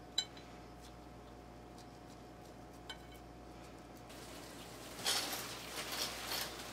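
A sharp clink as a raw mince patty is set down on a stainless steel tray, then, about five seconds in, soft rustling and squishing of plastic-gloved hands working raw mutton mince.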